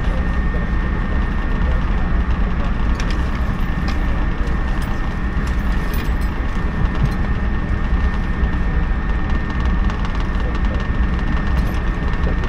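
Steady running noise heard inside a JNR 113 series electric train carriage as it pulls away from a station: wheels on rails and traction motors, with a few faint clicks.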